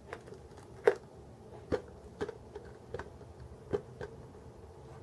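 Small plastic figure parts being handled and fitted: a scattering of sharp clicks and taps, about half a dozen, as a Nendoroid arm piece is tried on the figure.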